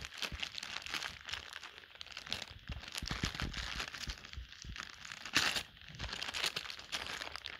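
A clear plastic bag of metal toilet-seat fixings crinkling and rustling as it is handled and opened by hand, with a louder rustle about five and a half seconds in.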